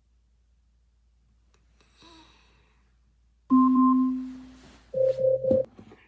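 An Amazon Echo Show's timer alarm chimes once, the tone starting suddenly about three and a half seconds in and fading over about a second: the timer has run out. Near the end come three short, quick tones.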